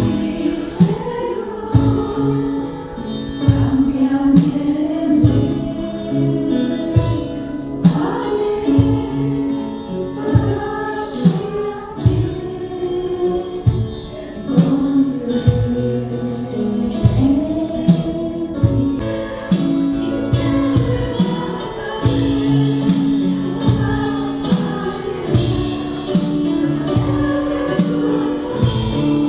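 A group of voices singing a worship song in Spanish over band accompaniment with a steady beat.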